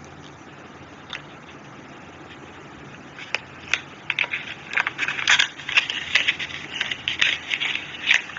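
Small cardboard cosmetics box being pulled open, with a fast, irregular run of crinkles and crackles starting about three seconds in.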